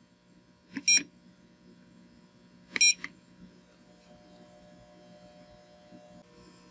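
Arcom Quiver XT handheld meter beeping as its keypad buttons are pressed: two short high beeps about two seconds apart, over a faint steady hum.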